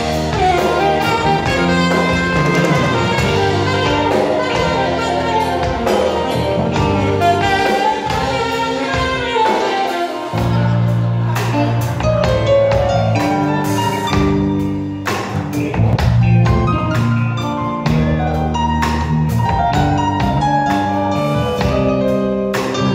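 Live jazz band: a saxophone plays a wavering lead line over keyboard and drum kit.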